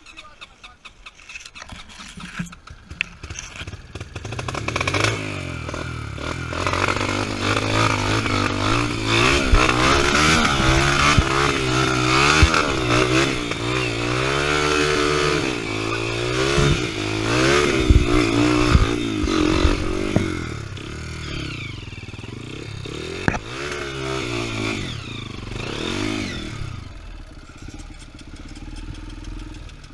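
Dirt bike engine revving up and down over and over as it is ridden, rising about four seconds in and dropping back near the end.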